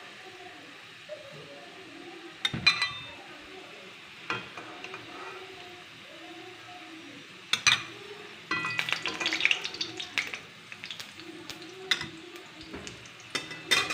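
Potato halves sizzling in hot oil in a kadai, with a steel spatula knocking and scraping against the pan a few times as the fried potatoes are lifted out. The frying crackles louder for a couple of seconds past the middle.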